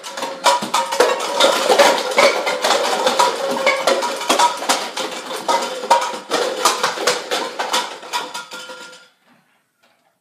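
Nerf Rapidstrike, a motorized fully automatic flywheel dart blaster, firing with a steady motor whine under a rapid run of clicks. Plastic cups clatter as darts knock the stack down. Everything stops abruptly about nine seconds in.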